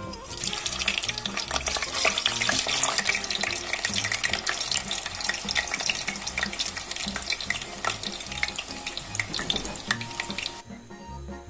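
Hollowed-out potato halves frying in hot vegetable oil in a deep pot: a steady sizzle full of fine crackles that cuts off abruptly near the end. Soft background music runs underneath.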